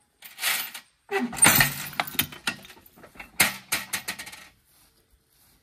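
Metal clinking and rattling in three bursts, the loudest about a second and a half in.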